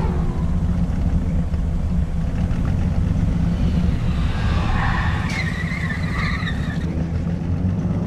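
Recorded car traffic sounds: engines running with a steady low rumble, and a tyre screech about five seconds in.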